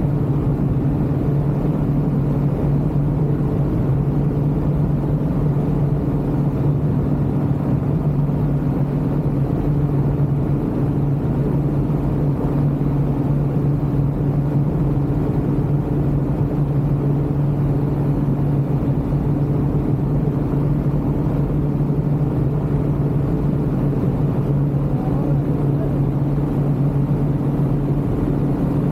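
Ultralight aircraft engine running steadily in flight, an even drone that holds the same pitch throughout, over a low rumble.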